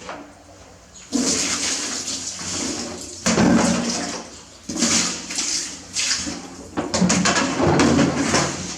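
Bath water splashing and pouring over a baby monkey in several sudden bursts of a second or two each.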